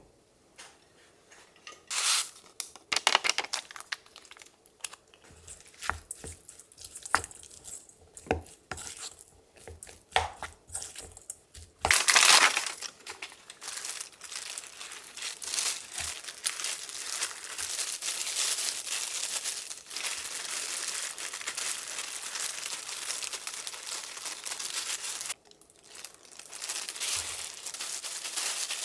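Kitchen handling sounds: scattered clicks and knocks for about twelve seconds, then a loud rustle and a steady crackling hiss for the rest, dropping out briefly near the end.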